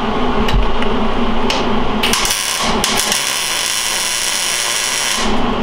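MIG welder tack welding steel jig pieces in place. There are two arcs: a short one about two seconds in, then a steadier one of about two seconds that stops shortly before the end.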